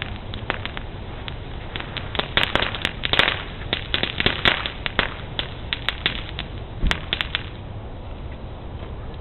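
Fireworks cracking: an irregular run of sharp pops and cracks that thickens about two seconds in and stops about seven and a half seconds in, with one deeper bang near the end of the run.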